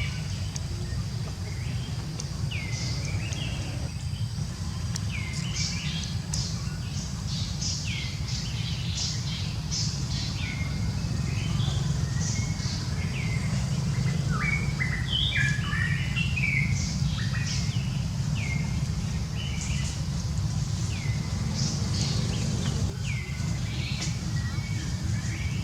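Short, high chirping calls repeat every second or two, with a flurry of overlapping chirps in the middle. A steady low rumble runs underneath.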